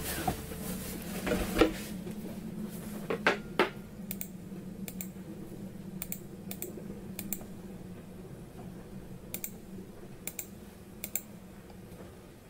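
Computer mouse clicking several times at irregular intervals, with a few louder knocks and bumps in the first few seconds and a faint steady hum underneath.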